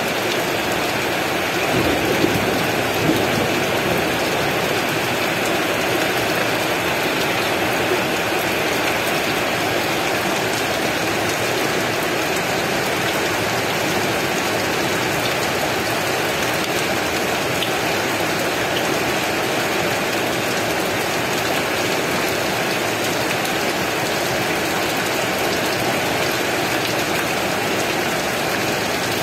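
Heavy rain falling in a steady, dense hiss, with a couple of brief louder spatters about two and three seconds in.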